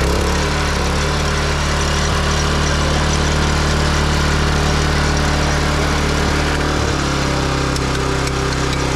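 Kawasaki FJ100 single-cylinder four-stroke engine of an Iseki VR350F mini tiller running steadily; its note changes slightly about seven seconds in.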